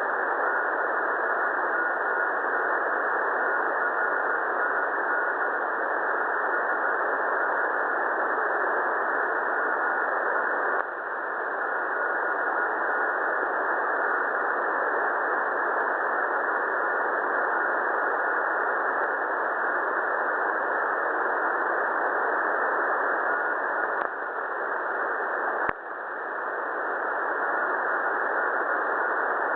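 Shortwave radio static on 7011 kHz, a steady hiss, with a faint Morse code tone keyed in dots and dashes over it at times. The hiss dips briefly with a click about eleven seconds in and again twice near the end.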